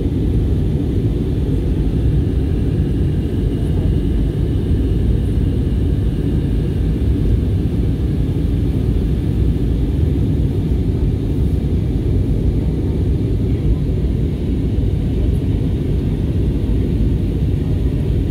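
Steady low rumble of an Airbus A320-family jet airliner's engines and rushing air, heard from inside the passenger cabin.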